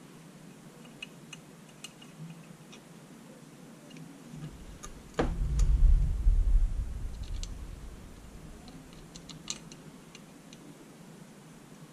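Small metal clicks and light clinks of bolts and compressor parts being handled on a cloth-covered bench. About five seconds in comes one sudden loud low thump, whose rumble fades over roughly three seconds.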